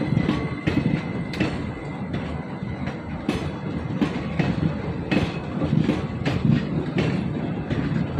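Passenger coaches of an Indian Railways train running past close by, steel wheels clacking irregularly over rail joints over a steady heavy rumble. A faint high wheel squeal fades out about a second in.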